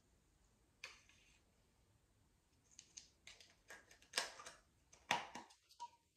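Faint handling sounds of a sunscreen bottle and applicator being picked up and used: a scatter of small plastic clicks and rustles, busiest in the second half.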